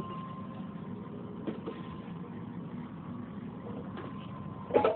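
A steady low mechanical hum with a faint, thin whine above it. A few light knocks come through, and there is a sharper knock near the end.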